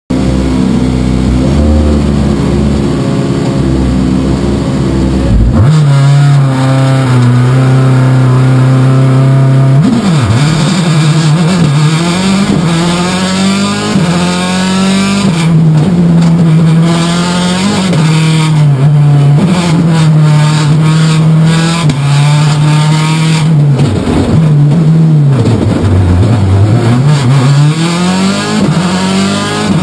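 Citroen C4 WRC rally car's turbocharged four-cylinder engine heard from inside the cabin, driven hard. The note holds steady for about five seconds, changes abruptly, then rises and falls over and over with gearshifts and lifts off the throttle, dipping deep twice near the end.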